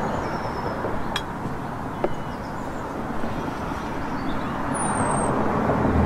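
Steady outdoor background noise like distant road traffic, with a couple of light clicks as china is set on the table and a brief bird chirp near the end.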